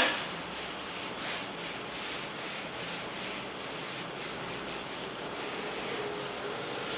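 A handheld whiteboard duster wiping across a whiteboard in repeated dry rubbing strokes, with a sharp knock right at the start.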